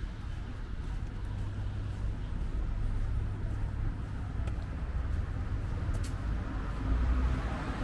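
City street traffic noise: a steady low rumble of passing cars, swelling about seven seconds in as a vehicle goes by.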